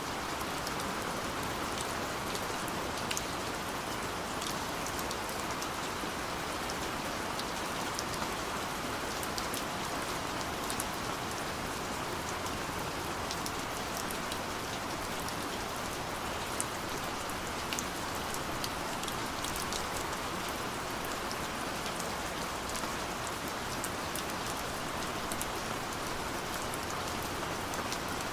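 Steady rain falling on a surface: a constant hiss with many small drop ticks scattered through it.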